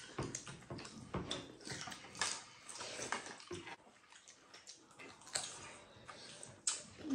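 Several people eating rice and chicken curry with their hands: irregular wet chewing and smacking, with small clicks of fingers and food against plates.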